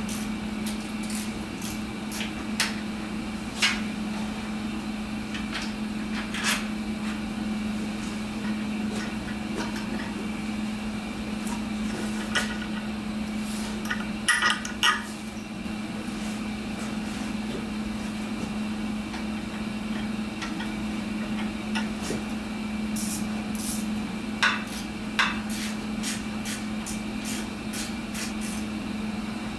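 Scattered sharp metallic clicks and clinks of hand tools, a bolt and a horn bracket being worked on a motorcycle frame, a few coming close together about halfway through and several near the end. Under them runs the steady hum of a running heater.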